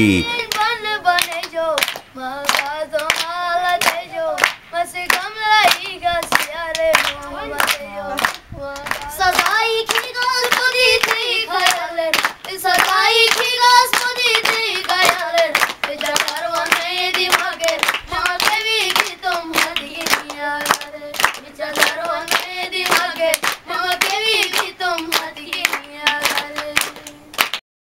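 A boy singing a ballad over a steady beat of hand claps. The singing and clapping stop abruptly near the end.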